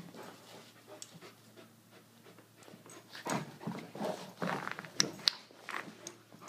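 Dogs panting in rough, breathy bursts during rough play, an Irish Wolfhound with an Aussiedoodle puppy. The panting picks up about three seconds in, with two sharp clicks close together about five seconds in.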